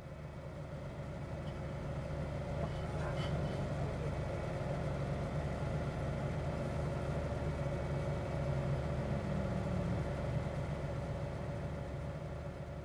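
2005 BMW M3's S54 inline-six idling steadily, heard from inside the cabin.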